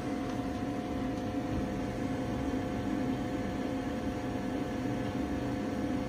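Gas furnace's draft inducer fan running with a steady hum and a few held tones, during the igniter warm-up before the gas valve opens.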